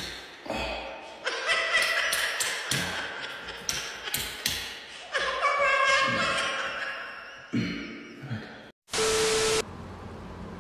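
Irregular knocks and thuds with raised, excited voices. Near the end comes a short burst of TV-static hiss with a steady beep.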